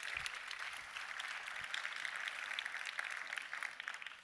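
Audience applauding: many hands clapping at a steady level, thinning a little near the end.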